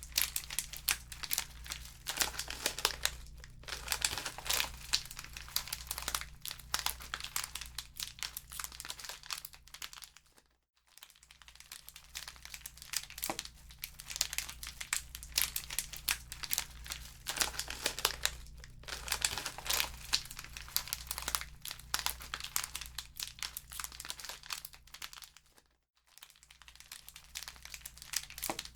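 Wood fire crackling and popping in a fireplace: a dense run of sharp crackles over a low steady rumble. The sound drops away for a moment twice, about ten seconds in and again near the end, then resumes.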